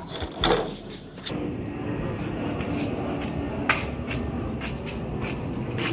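Small motorbike engine starting about a second in and then running steadily as the bike moves off, after a couple of knocks.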